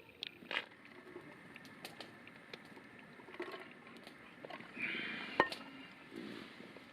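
Faint scattered clicks and light handling noises. About five seconds in there is a short rustle, then a single sharp click.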